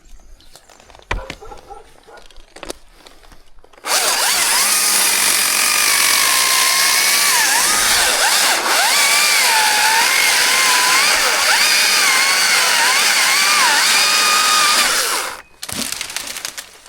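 Chainsaw running at full throttle through a cut for about eleven seconds. Its engine pitch dips and recovers as the chain loads in the wood. It starts abruptly about four seconds in and stops abruptly near the end, with light knocks before it.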